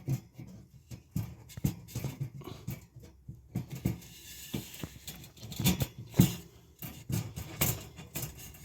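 Irregular knocks, taps and rustling as wooden cage panels are handled and fitted together by hand.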